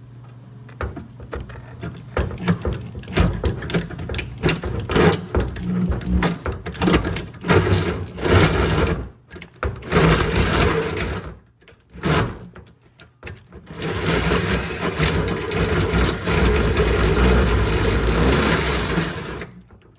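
Power drill cutting through the sheet-metal strut tower. It runs in short stop-start spurts with brief pauses, then in one long steady run that cuts off just before the end.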